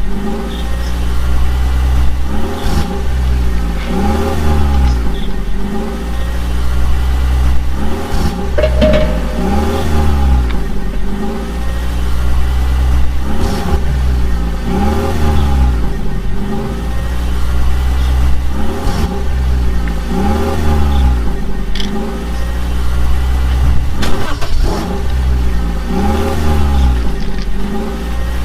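Vehicle engine revving, its pitch rising and falling in a regular cycle about every two seconds over a deep rumble.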